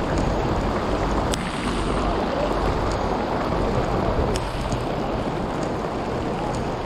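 Steady rain, with a low rumble of wind on the microphone and a few sharp ticks scattered through it.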